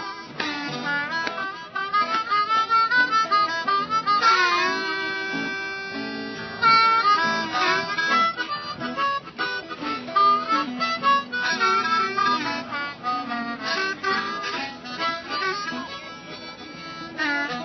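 Blues harmonica, cupped in the hands, wailing with bent notes over acoustic guitar accompaniment.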